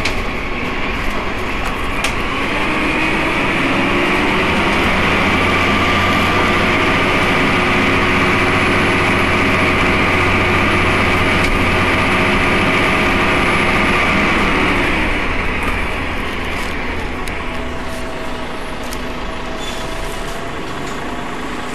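Cummins ISMe-335 10.8-litre straight-six diesel of a Transbus Trident III bus pulling under load: the engine note climbs for a couple of seconds, holds loud and steady with a whine above it, then eases off about fifteen seconds in, with a tone dipping and rising again shortly after.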